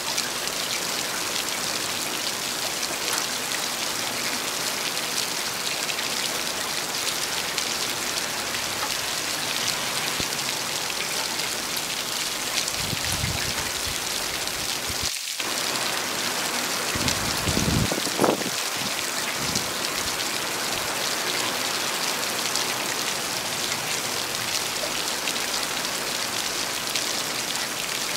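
Steady heavy rain, an even hiss of rainfall. About halfway through, a brief low rumble rises under the rain and fades.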